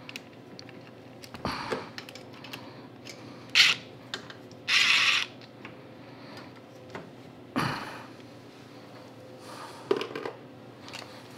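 Cordless DeWalt Atomic driver spinning out the starter motor's mounting bolts in two short runs: a quick blip about three and a half seconds in and a half-second run about five seconds in. A few knocks from handling the parts come around them.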